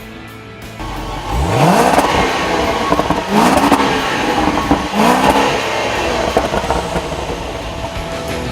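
Supercharged 5.0-litre V8 of a 2014 Range Rover accelerating hard. The engine note climbs from about a second in, then climbs again twice more, around three and five seconds in, as it goes up through the gears.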